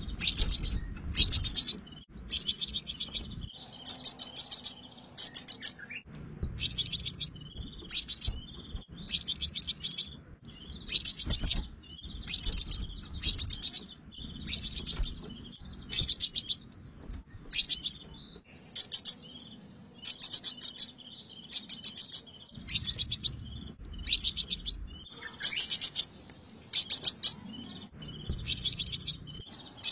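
Sunbird song: rapid, high, buzzy trilled phrases repeated one after another with short pauses between them.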